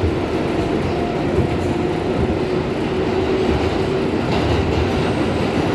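R142A subway train running between stations: a steady rumble of wheels on rail, with a faint tone from the traction motors rising above it in the middle.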